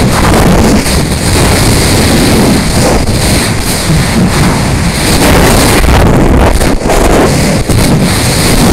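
Loud, gusty wind rushing over the onboard camera's microphone as the rocket's upper payload section falls under a small parachute after deployment. The rush is steady, with a few brief dips.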